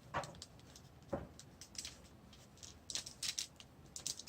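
Plastic action figure and its cloth shirt being handled: scattered small clicks and rustles of the figure's jointed limbs and fabric as the shirt goes on.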